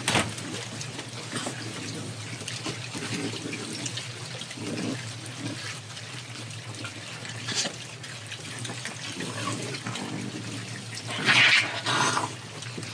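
A large group of raccoons munching food together: a dense, wet crackle of chewing and smacking. Two louder, sharper bursts come from the group near the end.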